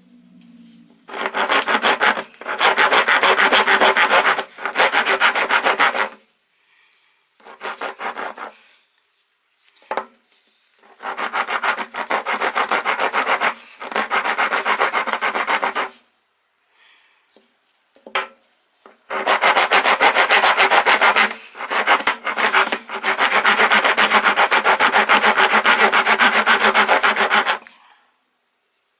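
Daiso coarse-cut half-round wood rasp filing wood: spells of grating strokes lasting one to four seconds, broken by short pauses.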